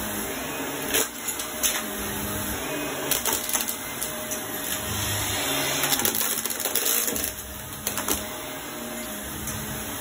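Shark upright vacuum cleaner running with its brush roll on a rug as it is pushed back and forth: a steady motor drone broken by scattered sharp clicks and rattles as small debris is sucked up, the busiest stretch between about six and seven seconds in.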